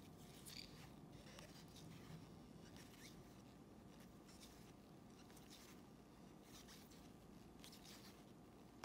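Faint, soft swishes of trading cards sliding over one another as a stack is flipped through by hand, a light scrape every second or so.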